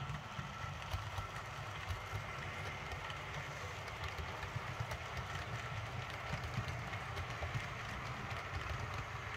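Hornby OO gauge Midland Pullman HST model train running on the layout: the sound decoder's diesel engine sound plays over a steady low rumble and a constant thin whine, with frequent small clicks from the wheels over rail joints and points.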